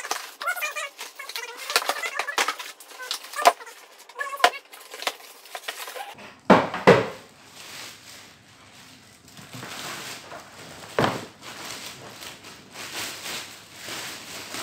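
Packaging being handled as a telescope is unboxed: cardboard and plastic wrapping rustling and crinkling, with many sharp crackles, then a few loud rustles as the plastic wrap is pulled off the telescope tube.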